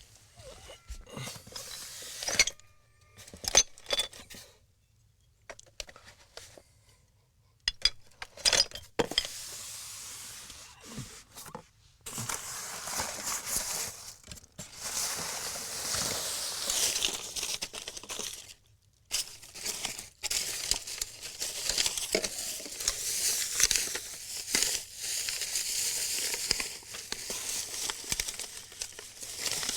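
Rustling and crinkling with scattered clicks and clinks, as of belongings in bags and boxes being rummaged through. The rustling grows dense about twelve seconds in and breaks off briefly a little later.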